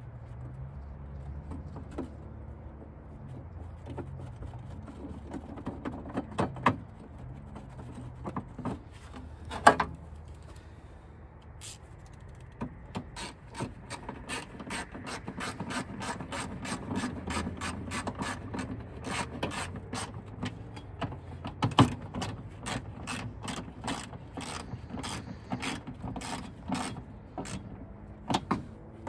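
Hand ratchet clicking inside a steel station-wagon tailgate. A few separate metal knocks come first, with a sharp clack about ten seconds in. From about halfway through comes a steady run of quick ratcheting clicks, several a second, as the tool is worked back and forth on the tailgate mechanism.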